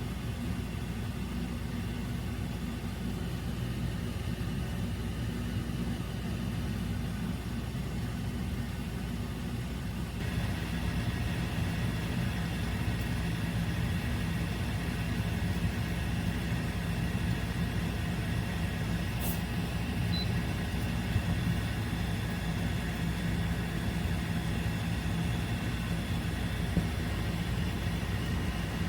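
Dreo ChefMaker combi air fryer running with a steady fan hum. About a third of the way in a brighter, higher whir or hiss joins it, and there is one short click about two-thirds of the way through.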